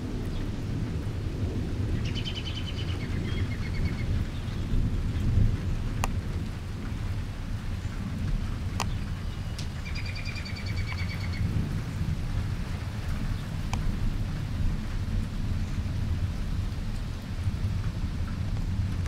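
Thunderstorm ambience: a steady low rumble without swells, with a songbird's short trilled call twice and a few sharp ticks.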